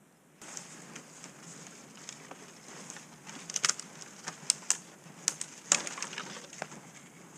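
A dog scrabbling and digging in crusty snow, its paws crunching and scratching, with a run of sharp crunches and crackles about halfway through.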